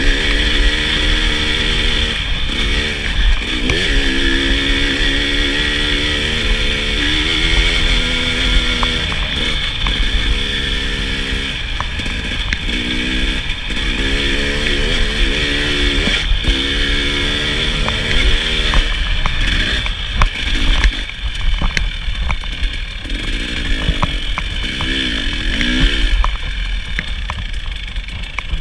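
KTM 300 XC-W single-cylinder two-stroke dirt bike engine revving up and down over and over as it is ridden off-road. In the second half the engine sound breaks up more, mixed with many short knocks and clicks.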